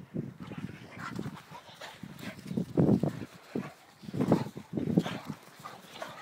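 An Alapaha Blue Blood Bulldog and a blue Staffordshire bull terrier play fighting: rough growls and scuffling in irregular bursts, loudest about three and four seconds in.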